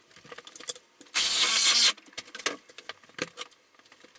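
Reciprocating saw running in one short burst of under a second, cutting into the wall framing, with scattered knocks and clatters of wood before and after.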